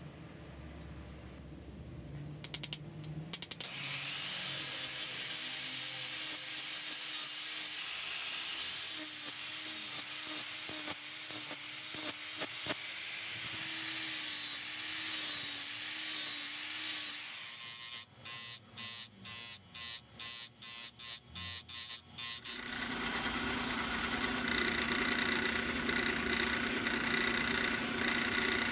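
A few small metal clicks from the tiny forged hammer head being handled on an anvil. Then an angle grinder with a flap disc grinds the steel head, a steady hiss over a wavering motor hum. About 18 s in comes a run of about a dozen sharp knocks, roughly three a second, and from about 22 s a belt grinder runs steadily as the head is ground against its belt.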